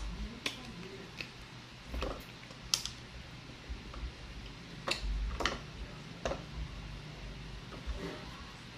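Close-up eating sounds: chewing with wet mouth smacks and clicks, and fingers squishing rice and beef together in a bowl, short sounds every second or so.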